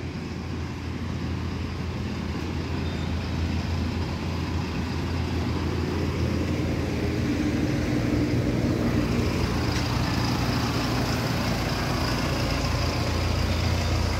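Tractor's diesel engine running steadily with a low hum, growing gradually louder over the first half.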